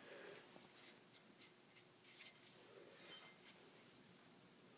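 Near silence, with a few faint, brief scratching or rubbing sounds in the first few seconds.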